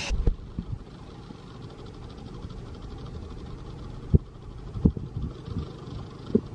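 Wind buffeting the microphone: a low, uneven rumble with a few sharp thumps about four and five seconds in and again near the end.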